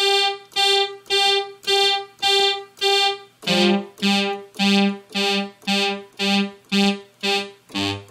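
Oberheim OB-SX analog polyphonic synthesizer playing one note repeated about twice a second, cycling through its voice cards, which sound consistent and in tune after calibration. About three and a half seconds in, the repeated note steps down to a lower pitch, and it drops lower again near the end.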